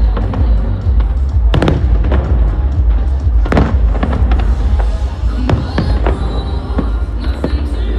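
Aerial fireworks bursting with sharp bangs every one to two seconds, over loud music and a steady low rumble.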